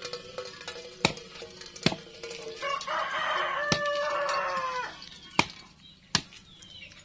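A rooster crowing once, a long call of about two seconds that dips a little at the end. Several sharp knocks sound before, during and after it.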